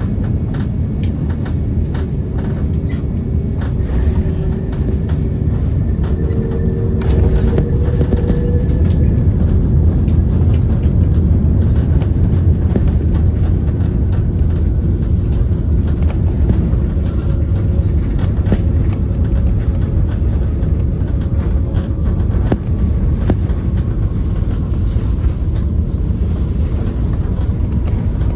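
Airliner cabin noise: a loud, steady rumble of the jet engines and airflow, with scattered light knocks and rattles and a few faint held tones.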